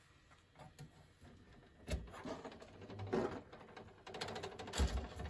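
Vintage Windsor box fan being handled and shifted around, not running: a sharp thump about two seconds in, a run of rattling and clattering, and a heavier thump near the end.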